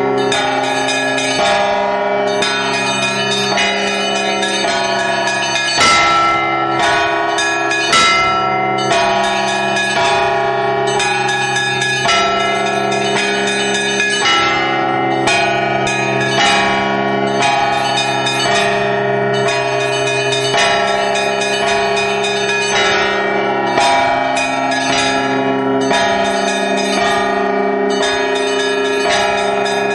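Russian Orthodox church bells rung by one ringer pulling ropes tied to the clappers of fixed bells: small bells chime in a quick running pattern over the sustained tones of larger bells. A heavier stroke comes about every two seconds.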